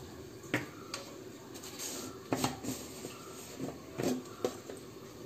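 About half a dozen light, separate knocks and clicks of plastic spice jars being put down, picked up and opened on a kitchen counter.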